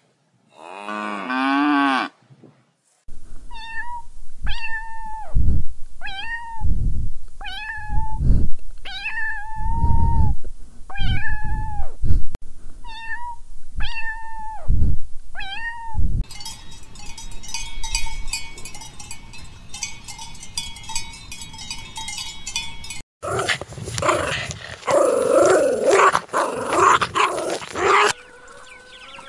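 A cat meowing over and over: about nine short, high calls. They are followed by a different rapid crackling sound and then a loud, harsh, noisy stretch of several seconds.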